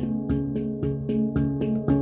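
Handpan being played: a steady run of struck notes, about four a second, each ringing on over sustained lower tones.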